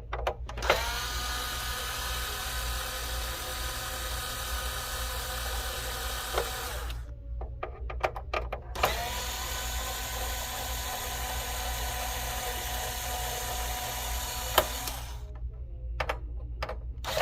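Small electric screwdriver motor whining as it backs out the screws holding a PS5's cooling fan and internal cover. It spins up at the start and runs in two long stretches of about six seconds each, with a short gap between them, then gives a few short bursts near the end.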